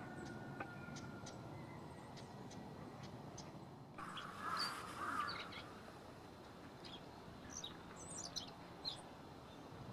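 Wild birds calling. Two rough, noisy calls come a little before halfway, then a scatter of short high chirps in the last few seconds, over a steady low background hiss.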